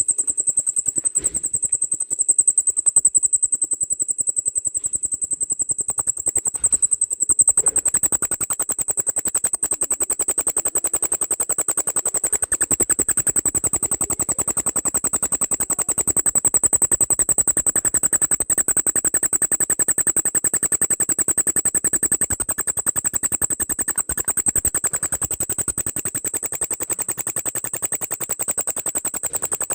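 Bell cricket (Meloimorpha japonica) singing: a continuous high-pitched ringing trill made of rapid pulses. A steady lower background noise joins about seven seconds in.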